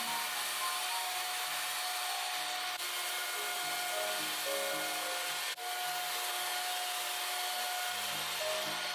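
Electric mixer running steadily at high speed, whipping a batter, under background music with a simple melody.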